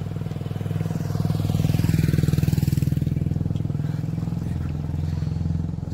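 Motorcycle engine running steadily close by. It swells to its loudest about two seconds in as an oncoming motorcycle passes, then eases off.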